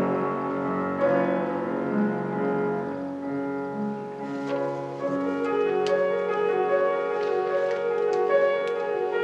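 Live classical music under a conductor, with piano accompaniment: sustained held notes of the ensemble, the harmony changing about a second in and again near the middle, and short struck notes entering after about four seconds.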